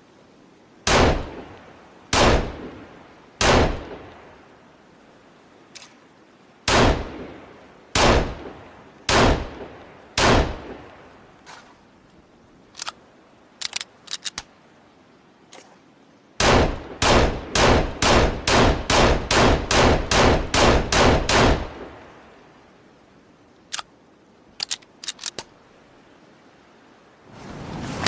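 Pistol gunshot sound effect. Seven single shots with echoing tails come a second or two apart, then a few faint clicks, then a rapid string of about a dozen shots at two or three a second, then more faint clicks. Just before the end a steady rushing noise comes in.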